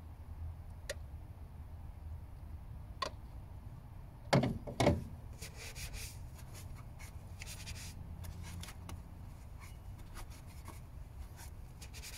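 Light handling noises: a couple of small clicks, two sharp knocks about half a second apart partway through, then intermittent faint rubbing and scraping.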